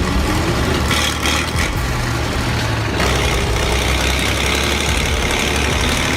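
Heavy vehicle's engine running steadily at a low pitch, with the sound shifting about three seconds in.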